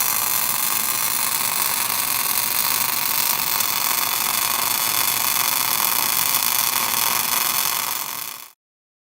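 A machine running steadily: an even, hissing noise with many steady high tones. It cuts off abruptly near the end.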